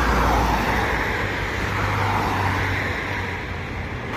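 Road traffic: cars passing, a continuous rush of tyre and engine noise.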